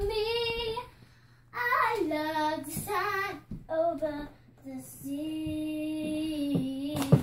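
A young girl singing in short, wordless phrases, then holding one long note for about two seconds. A sharp knock sounds just before the end.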